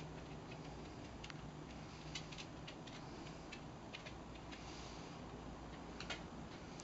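Faint, irregular light clicks and ticks, a few scattered through the stretch with a small cluster about six seconds in, over a quiet hiss.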